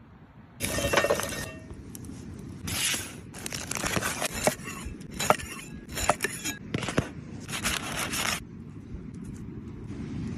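Cookware and utensils clinking and scraping in a run of short bursts with sharp clicks.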